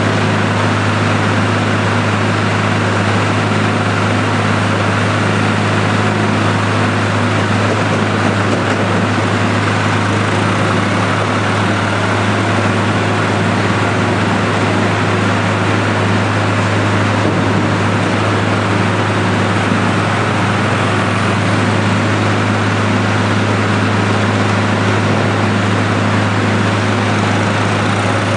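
Penta vertical TMR mixer running steadily as its auger turns and processes a load of hay in the tub, giving a constant low machine drone with a noisy rush over it.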